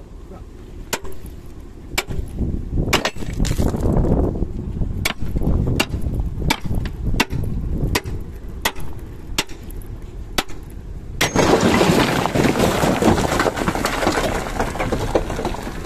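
A metal bar knocking repeatedly on a Nissan Diesel CWB370 dump truck's tailgate latch, a string of sharp metallic knocks. About eleven seconds in, the tailgate lets go and the tipped load of sand and gravel pours out in a sudden steady rush.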